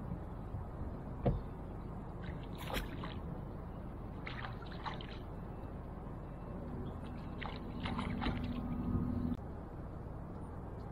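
Small splashes and sloshing water at a bass boat's side as a small largemouth bass is released, with a few short clicks and knocks. A steady low hum runs for a few seconds in the second half and cuts off suddenly.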